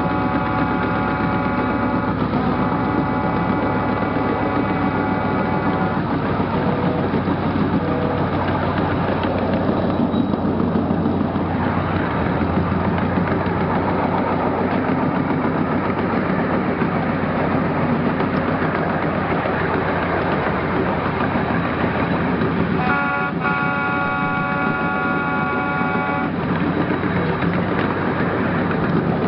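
A 12-inch gauge ride-on train runs steadily along its track with a continuous rumble. Over this, the locomotive sounds two long chime blasts at the start and one more blast of about three seconds near the end.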